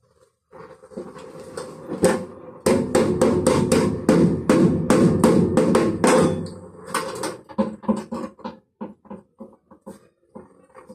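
A rapid series of sharp knocks, about four a second, over a low rumble. They come loudest from a couple of seconds in until past the middle, then turn fainter and more spaced out near the end.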